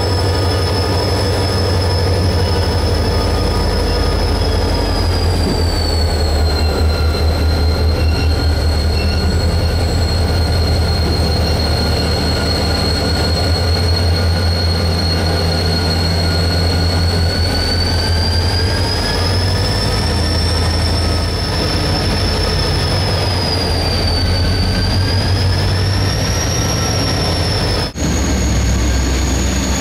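Train rolling on the QNS&L Railway: a steady low rumble of wheels on rails with a high-pitched wheel squeal that wavers slowly up and down in pitch. About two seconds before the end the sound breaks off sharply and resumes with the squeal a little higher.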